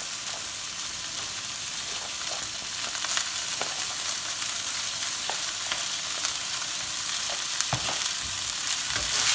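Leftover cooked rice frying in a hot pan of olive oil with garlic, ginger and chilli: a steady sizzle with scattered clicks and scrapes of a utensil against the pan, getting a little louder near the end.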